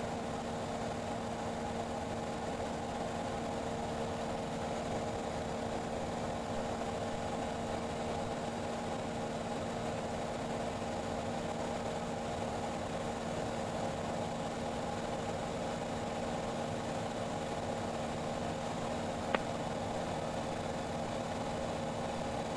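Cessna 172's single piston engine and propeller droning steadily in the cabin, a constant hum with several held tones. One short click late on.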